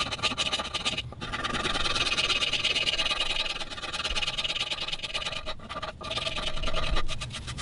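Iwasaki fine-cut curved half-round file rasping across a carved hard-maple guitar top in quick, steady strokes, with short breaks about a second in and around six seconds. The filing is cleaning the last lines and marks out of the carve.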